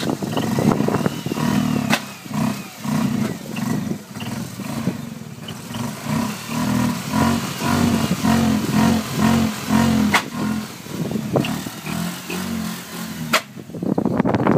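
Mazda RX-8 rotary engine running unevenly, its sound swelling and dipping about twice a second, with a few sharp clicks. The owner takes the uneven running for either a misfire or a failing catalytic converter, despite new coils, plugs, plug wires and MAF sensor.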